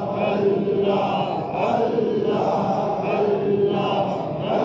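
A group of men chanting a short devotional phrase together, the phrase repeating about every second and a half, in the manner of Sufi zikr.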